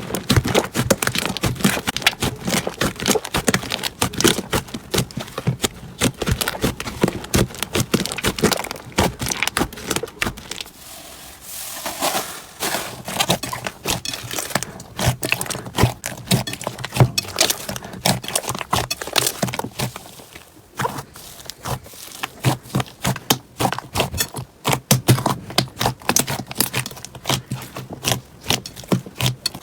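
Slime being squeezed and poked by hand, giving dense, rapid crackling and clicking, with a softer, smoother stretch about ten seconds in.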